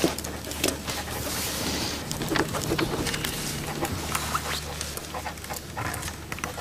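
Pens scratching and tapping on paper at desks, with small scattered clicks and scrapes in a quiet room.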